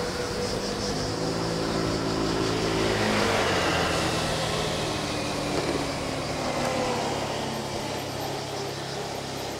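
A car engine running close by, a stack of low tones that starts about a second in and sinks slightly in pitch, over a steady rushing noise.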